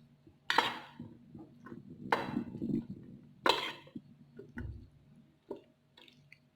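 A spoon stirring a mayonnaise-dressed salad in a bowl: softer scraping and clicks, with four sharp knocks of the spoon against the bowl, one every second or two.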